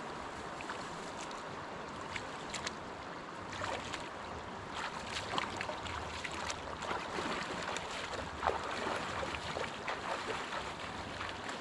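River water rushing steadily, with many short splashes and ticks scattered through it.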